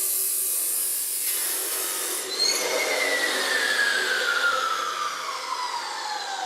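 Chop saw cutting through a steel piece, the cut finishing about two seconds in; the saw's motor is then released and the blade winds down, its whine falling steadily in pitch.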